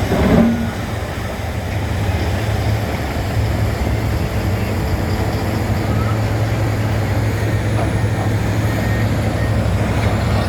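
Heavy earthmoving machine's diesel engine running steadily, a continuous low drone, with a short louder sound just after the start.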